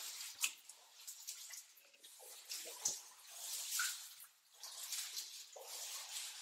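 Water sloshing and splashing around a person wading through deep floodwater, in irregular swells with a few sharp drips or splashes.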